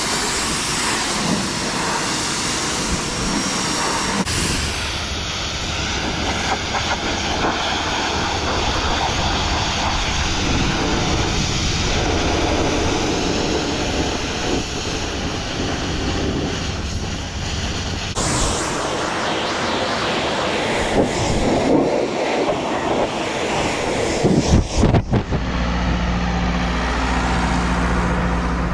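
Pressure washer spraying down a tractor: a steady, loud hiss of the water jet that changes tone part way through and cuts in and out near the end. In the last few seconds it gives way to a steady low engine hum.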